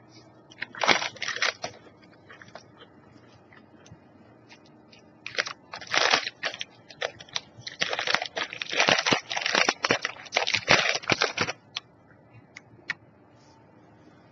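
Crunching and crinkling from a packaged snack cookie, in irregular crackly bursts: a short one about a second in, another near six seconds, and a long dense run from about eight to eleven and a half seconds.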